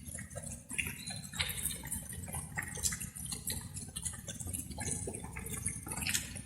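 Light rain dripping: many irregular drops and splashes, over a steady low rumble.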